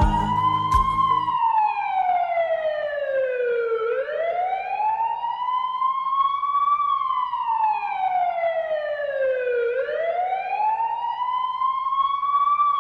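A siren-like wail, a single tone sliding slowly up and down about three seconds each way, over and over. The backing music cuts off just over a second in, leaving the wail alone.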